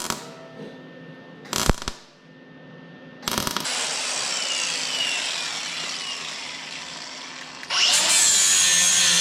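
Two sharp knocks, then a power tool runs against metal from about three seconds in, with a faint shifting whine, and gets clearly louder near the end.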